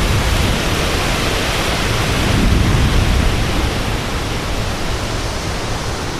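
Strong thunderstorm wind gusting and buffeting the microphone: a loud, steady rush with deep rumbling, swelling about two to three seconds in and easing a little after.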